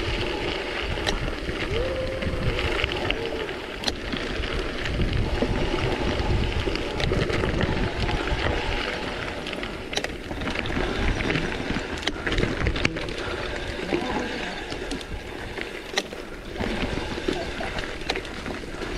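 Wind rushing over the microphone and gravel-bike tyres rolling over rough dirt, a steady rumbling rush with occasional sharp clicks and knocks from the bike over bumps.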